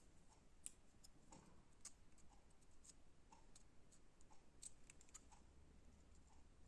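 Near silence, with faint, irregular small clicks and ticks, a few a second.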